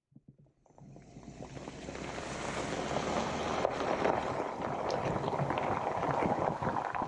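Jeep Wrangler Rubicon rolling slowly along a gravel road: tyres crunching over loose gravel, with wind rushing across the side-mounted camera's microphone. The sound fades in over the first couple of seconds, then holds steady.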